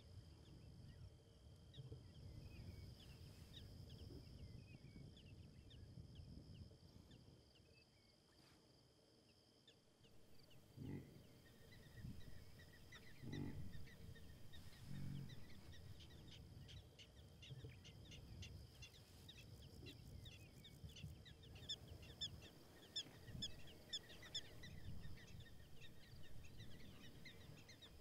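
Faint open-grassland ambience: birds chirping, with the chirps growing busier over the last several seconds, over a low wind rumble and a steady high buzz. Three short, low animal calls come between about 11 and 15 seconds in.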